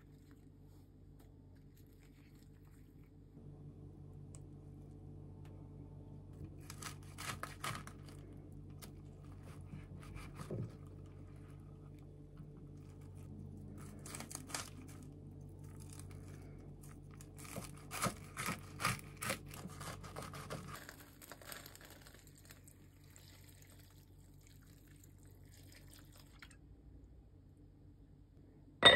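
A kitchen knife cutting through a stack of napa cabbage, perilla leaves and sliced beef on a wooden cutting board: three runs of crisp crunching strokes as the blade goes through the cabbage, over a low steady hum.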